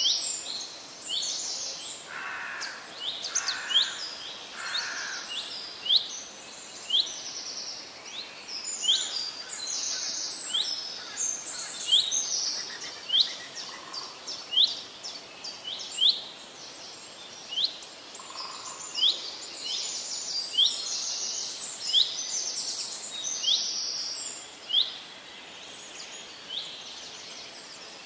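Birds chirping: short rising chirps about once a second, with faster trilling calls in between, over a steady faint hiss.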